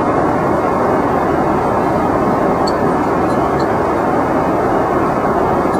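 Steady roar of an airliner cabin in flight, the even drone of jet engines and rushing air, with a couple of faint clinks about halfway through.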